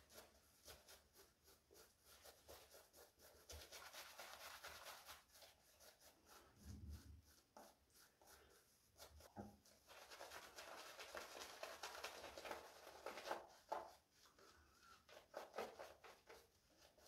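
A 22 mm synthetic shaving brush scrubbing lather onto a bearded neck and face. Faint, scratchy, quick brushing strokes come in bouts.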